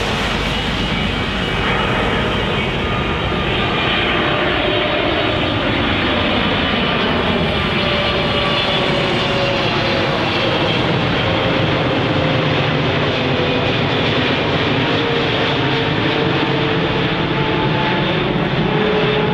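Boeing 777 freighter on final approach with landing gear down, its two GE90 turbofans at approach power passing low overhead: a loud, steady jet roar with a tone that slowly falls in pitch as the aircraft goes by and moves away.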